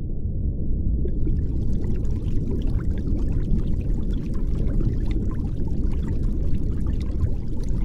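Air bubbles rushing and bubbling around a diver just after entry, heard underwater: a dense, muffled low rush. Crackling bubble pops join it about a second in.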